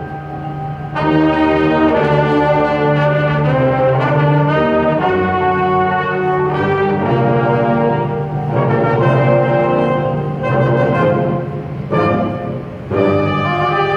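High school winds ensemble playing, brass to the fore, in sustained full chords. It comes in loud about a second in and drops back briefly about a second before the end.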